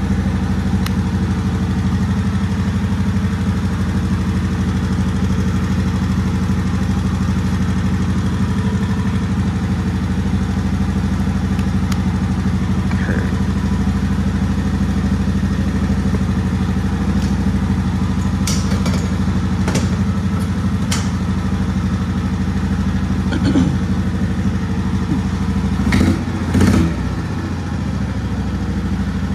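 Predator 459 single-cylinder engine idling steadily on a go-kart buggy. A few light clicks come about two-thirds of the way in, and a couple of louder knocks near the end.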